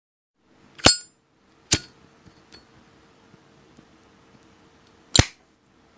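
Three sharp metallic clicks from a Zippo lighter. The first, about a second in, is the loudest and rings briefly like a clink. A second click follows under a second later, and a third about three and a half seconds after that.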